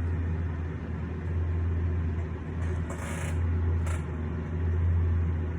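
Steady low hum, with two short papery rustles about three and four seconds in: a picture book's page being turned.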